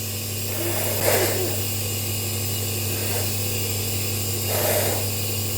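Compressor nebulizer running, a steady electric hum with a hiss of air. Two soft breaths come through it, about a second in and again near the end.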